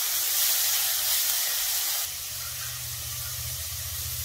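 Potato and pointed gourd cubes sizzling in hot mustard oil in a kadai, a steady high hiss. About two seconds in the sizzle drops and a low steady hum comes in.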